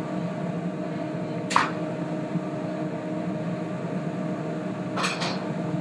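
Steady hum of kitchen ventilation, with short sharp sounds about one and a half seconds in and again about five seconds in.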